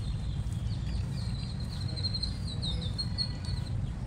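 Small birds chirping in quick, high, repeated notes, thickest about halfway through, over a steady low background rumble.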